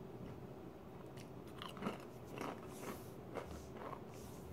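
Faint chewing of a wavy ridged potato chip: a few irregular soft crunches, spaced about half a second to a second apart.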